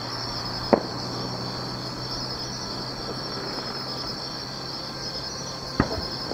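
Two distant firework shells burst, each a single sharp bang, about five seconds apart: one near the start and one near the end. Between them runs a steady, high, pulsing chirring of insects.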